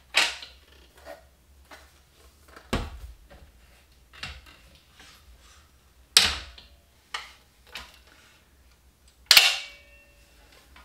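Metal frame halves of a table saw's rolling stand clanking as they are lifted out and set down: about five sharp knocks spread out, one near the end ringing briefly.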